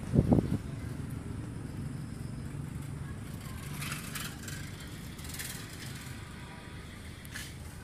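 A dull thump at the start, then brief scraping and rattling twice and a click near the end as a perforated metal ceiling channel is handled and fitted, over a steady low hum.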